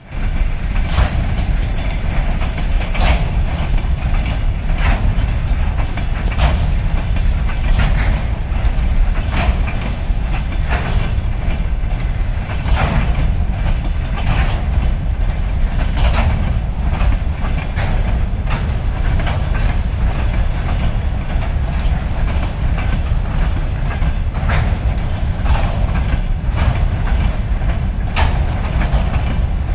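Freight train rolling past: a steady low rumble of the wagons, with sharp clacks of the wheels over the rail joints repeating about every one and a half to two seconds.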